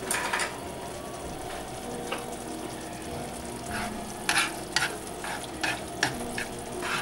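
Glass noodles in sauce sizzling and bubbling in a pan, stirred with chopsticks and a plastic slotted spatula. Over the steady hiss, the utensils click and scrape against the pan several times, more often in the second half.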